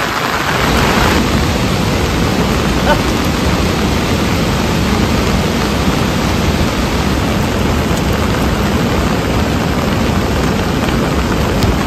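Steady rain falling, a loud even hiss without a break.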